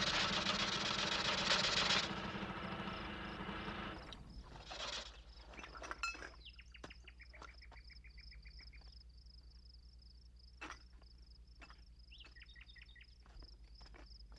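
A loud, dense noise with a steady hum fades out over the first four seconds. It leaves an outdoor background of insects chirping in a steady rapid pulse, several times a second, with short runs of quick bird-like chirps and a few soft clicks.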